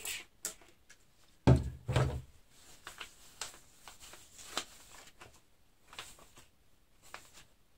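Desk handling sounds: two dull thuds about one and a half and two seconds in, as a plastic spray bottle is set down, then faint scattered small clicks and knocks.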